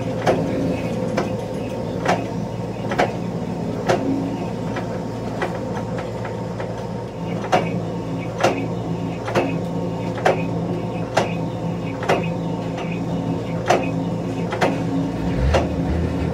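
Metal lathe running, turning a spur gear in a four-jaw chuck: a steady motor and gearbox hum with a sharp regular knock a little more than once a second.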